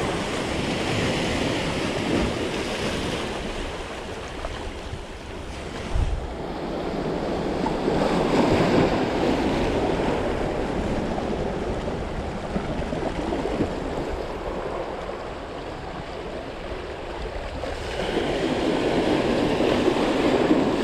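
Small sea waves breaking and washing over shoreline rocks, swelling in surges every several seconds, with wind buffeting the microphone.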